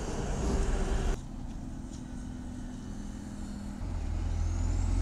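Highway traffic noise; near the end a heavy vehicle's low rumble grows louder as it approaches.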